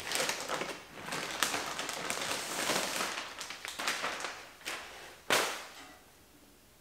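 Clear plastic bag crinkling and rustling as it is pulled off a boxed console vault, with one sharp, louder noise about five seconds in before the handling goes quiet.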